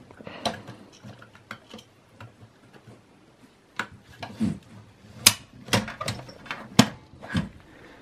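SATA data and power plugs being pushed onto a 2.5-inch SSD and the cables handled inside a Dell Optiplex 9020 small-form-factor case: light handling rustle with a run of sharp plastic clicks and knocks, the loudest ones between about five and seven and a half seconds in.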